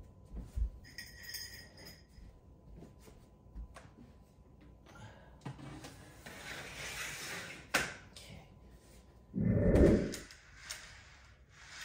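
Scattered clicks and knocks of toy train track sections being handled and snapped together, with a loud, short low thud about nine and a half seconds in.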